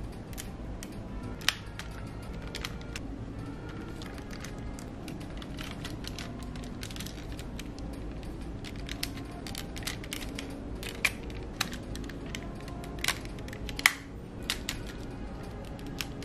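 Hard plastic parts of a DX transforming toy robot clicking and snapping as they are fitted and locked together during the combination. The clicks come irregularly, with the loudest few in the last third.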